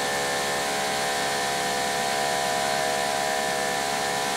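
Greenworks Pro 2700 PSI electric pressure washer running under load, its motor and pump giving a steady whine over the hiss of water spraying through a 3.5 mm, 40-degree nozzle, at about 1100 to 1200 PSI.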